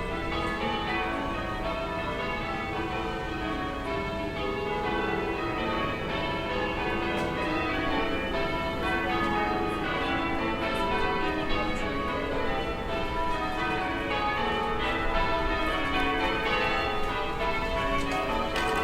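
Distant church bells ringing a continuous peal, many bells struck in quick succession so their tones overlap, over a low town background hum.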